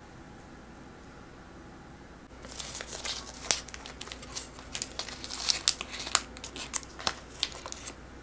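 Pleated paper baking cup being peeled off a baked muffin: crinkling and tearing paper with many sharp crackles. It starts after about two seconds of quiet.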